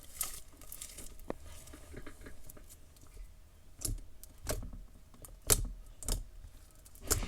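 Hands squishing and stretching a large batch of sticky, over-activated clear glue slime: irregular sticky pops, crackles and clicks as it is pulled apart and pressed together.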